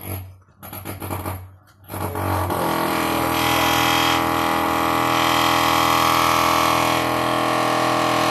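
A few short irregular bursts of sound, then, about two seconds in, a loud steady machine drone starts and holds at an even pitch.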